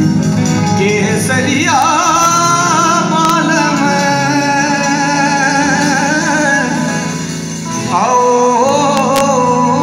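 Live band music through a PA: a male singer holding long, wavering notes over acoustic guitar and drums. The singing drops away briefly about three-quarters of the way through, then comes back in.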